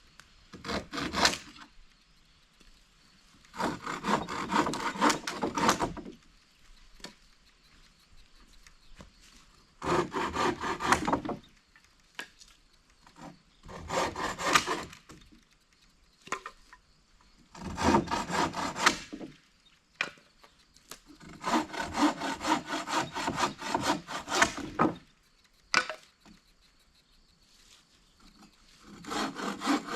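Hand saw cutting through wood in short bouts of quick back-and-forth strokes, stopping and starting about six times.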